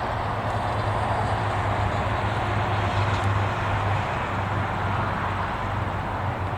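Steady highway traffic noise, an even wash of tyre and engine sound with no single event standing out.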